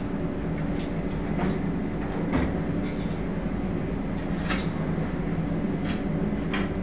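Running engine-room machinery droning steadily, with about seven scattered metallic clinks and knocks from a manual chain hoist and its lifting chains being handled.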